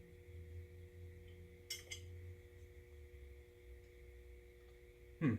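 Two light clicks about two seconds in as the grinder's wheel guard is handled and tried against the tool, over a faint steady hum.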